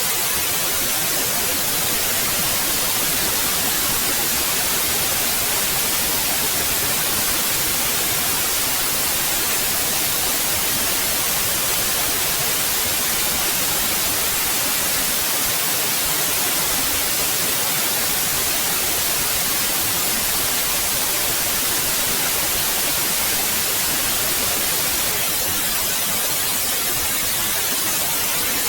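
Steady white noise: an even, unbroken hiss with its energy weighted toward the high end, never changing.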